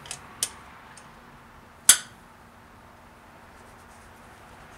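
Metal clinks of a 10 mm wrench working on a valve cover bolt: two light ticks at the start, then one sharp clink about two seconds in.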